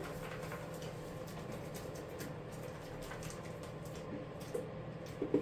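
Goat eating grain from the milk-stand feeder: faint, irregular crunching clicks over a steady low hum.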